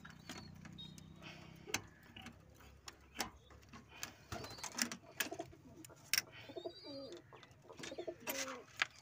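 Pigeons cooing, mixed with sharp metal clicks and clinks from a steel padlock and door hasp being unlocked and handled.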